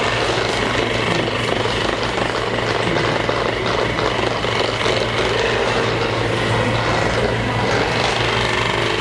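Percussive massage gun running steadily, its head hammering rapidly against the patient's muscles before a neck adjustment.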